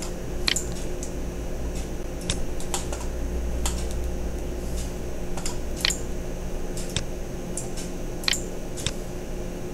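Irregular clicks of a computer mouse and keyboard, about one a second, over a steady low hum.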